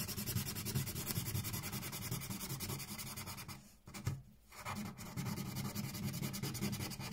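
Crayon scribbling rapidly back and forth on paper, a quick run of scratchy strokes that breaks off briefly about four seconds in.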